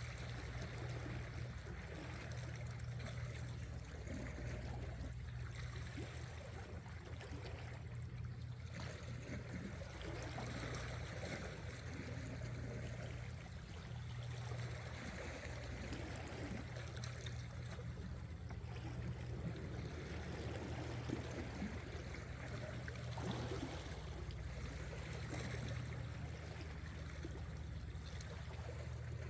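Seawater washing and trickling among shore rocks, with a steady low hum underneath.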